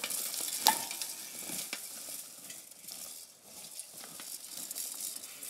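Small pedal bike's tyres skidding and crunching over a trail of bark chippings and dirt, with a sharp knock under a second in.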